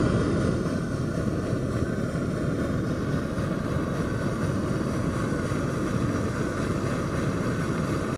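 Pressurised liquid-fuel stove burner running steadily, a constant low rushing noise.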